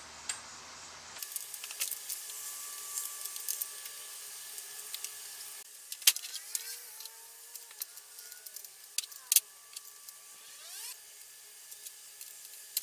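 Scattered clicks and knocks of hand tools and metal parts while an outboard motor's housing bolts are worked loose and the motor is shifted on the bench. The loudest knocks come about six and nine seconds in.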